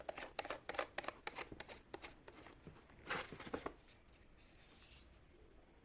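Handling noise: a quick run of light clicks and rustles for about three and a half seconds, then faint room tone.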